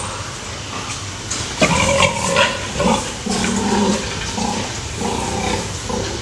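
Pigs grunting and squealing: a run of short calls starting about a second and a half in, the loudest ones first.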